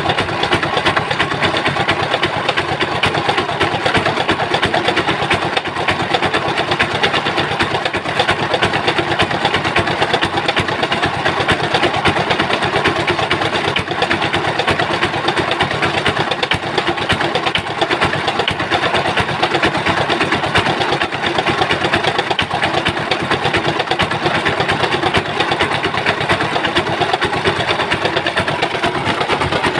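Hatz 790 single-cylinder diesel engine running steadily at a constant speed.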